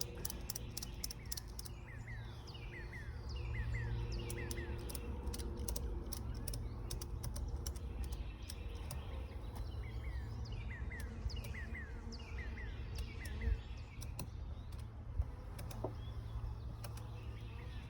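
Ratchet strap being cranked in a series of irregular sharp clicks as it is tightened, not very tight. Birds chirp in groups of short falling notes over a steady low hum.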